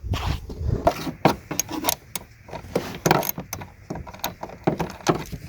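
Irregular metallic clicks and clinks of an 8mm socket wrench being fitted to and turning a small bolt on the brake light assembly, working it loose.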